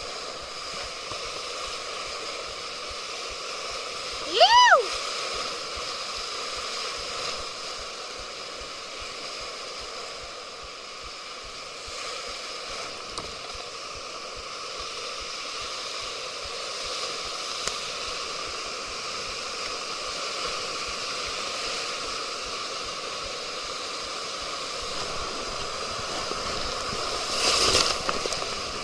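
River water rushing steadily through rapids. About four seconds in, a short, high call rises and falls in pitch, and near the end the water surges louder for a moment.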